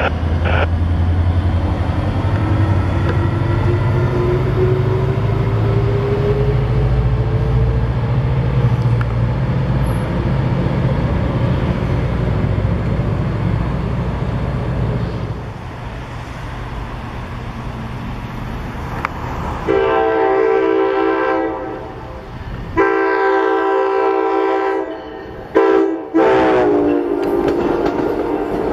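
A steady low rumble for the first half, easing off about halfway. Then a train's multi-tone air horn sounds two long blasts, a short one and a long one, the standard grade-crossing signal, with the last blast dropping slightly in pitch as the train passes.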